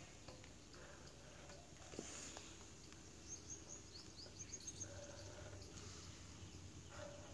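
Near silence, with a faint run of short, high bird chirps about three to five seconds in.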